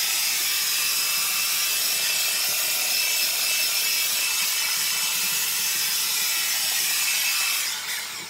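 Handheld electric HVLP paint sprayer, a HomeRight Super Finish model, running steadily while spraying paint onto a wall: a loud continuous hiss of atomizing air over a steady whine from its turbine. It winds down and stops shortly before the end.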